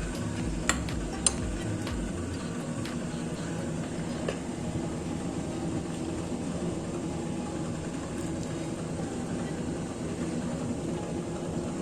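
A few light clinks of a utensil against crockery, mostly in the first few seconds, over a steady low background hum.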